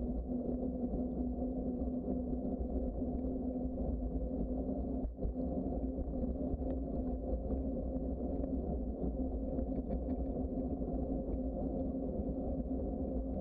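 Steady riding noise of a bicycle on a paved trail: a continuous low rumble with a constant hum, with a brief dip about five seconds in.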